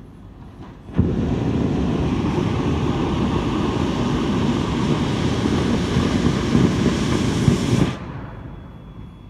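Two-truck Shay geared steam locomotive blowing down its boiler: a loud, steady rush of steam and water from the blowdown valve that starts suddenly about a second in and cuts off sharply about seven seconds later.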